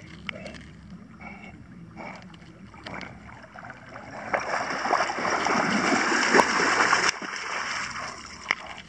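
A dog splashing through water as it swims in and wades out onto the shore, the splashing loudest from about four to seven seconds in.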